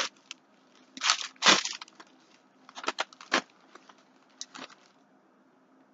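Packaging being rummaged through, crinkling in three short bursts with pauses between, the last one about four and a half seconds in.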